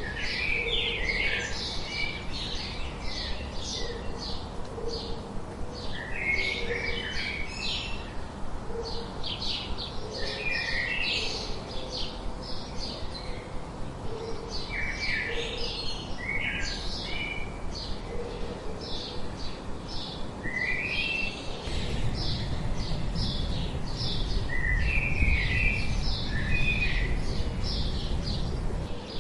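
A chorus of small birds chirping and twittering in quick, repeated notes, with a soft low call repeating underneath. About two-thirds of the way through, a low rumbling noise joins in.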